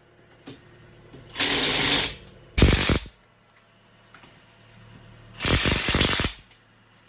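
Power impact wrench run in three short hammering bursts, about half a second to just under a second each, as the wheel's lug nuts are driven.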